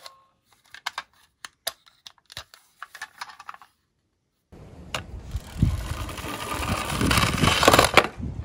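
Scattered small clicks and taps of toy die-cast minicars being handled. Then, about halfway through, toy cars rolling down a slope: a rolling rattle that starts suddenly, grows louder for about three seconds, and stops sharply near the end.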